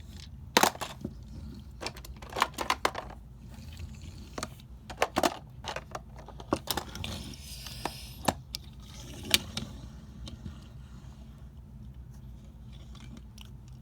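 Irregular clicks and light knocks, a dozen or so spread unevenly, over a low steady hum, with a short hiss about halfway through.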